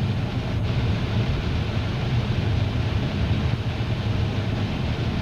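Car driving along, a steady drone of engine and road noise with a strong low hum.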